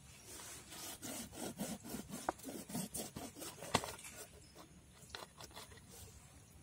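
Long kitchen knife sawing through a whole scaled fish behind the head on a wooden board: irregular rasping, crunching strokes, busiest in the first four seconds, with one sharp click just before four seconds in and a few more strokes around five seconds.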